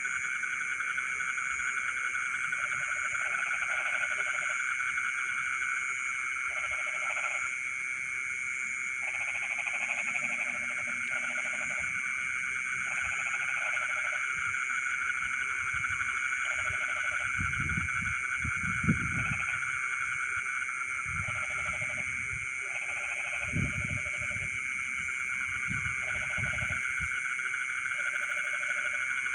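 Night chorus of frogs and insects in rice fields: a dense, steady trilling with short calls repeating every second or two over it. A few low thumps come in the second half.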